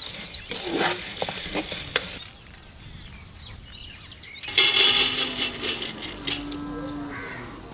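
Dry-roasted split gram rattling and scraping as a wooden spatula stirs it in a dry pan. About four and a half seconds in, the hot lentils pour into a glass bowl with a louder rush.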